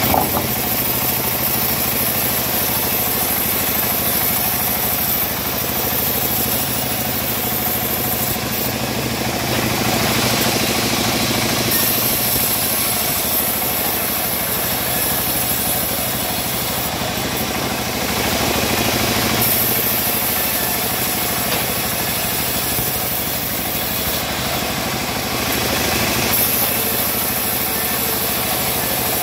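Homemade bandsaw mill running steadily, its band blade ripping a teak plank fed through by hand; the hiss of the cut grows and eases in stretches over the steady machine hum.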